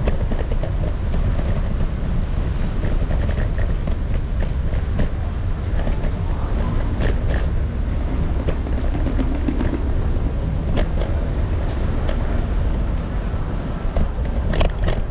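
Electric kick scooter's small hard wheels rolling over a paving-block street: a steady deep rumble with scattered rattling clicks.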